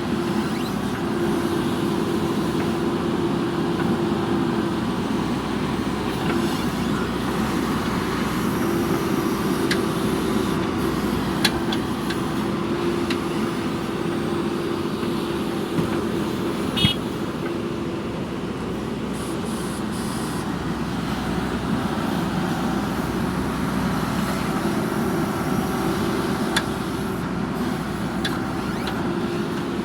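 JCB backhoe loader's diesel engine running steadily while digging, with a droning tone that fades out and comes back. There are a few sharp knocks about halfway through.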